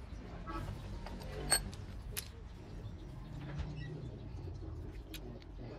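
Several short, light clicks and taps over a low background noise, the sharpest about a second and a half in.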